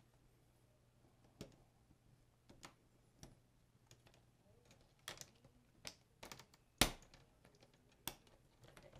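Plastic screen bezel of an Acer Aspire E1-522 laptop being fitted back onto the display lid: scattered sharp clicks and snaps of its clips as it is pressed into place, the loudest about two-thirds of the way through.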